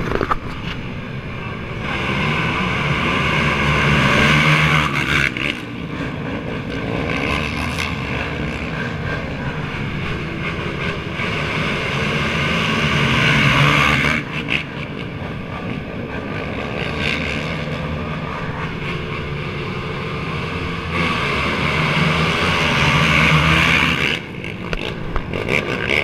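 Rows of race ATVs (quads) accelerating hard off the start line and past at full throttle. The engine noise swells to a peak three times and falls off sharply after each.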